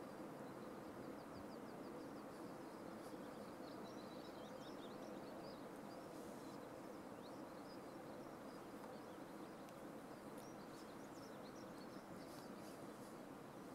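Faint, steady outdoor background rush, with a small songbird's high, quick chirps through the first five seconds or so and a few more near the end.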